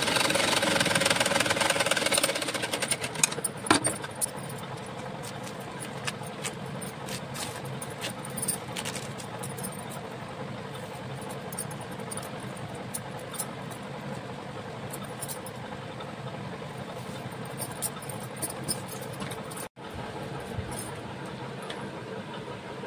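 Sewing machine stitching for about two seconds, then stopping. After that, a steady lower background noise with scattered light clicks and fabric-handling sounds.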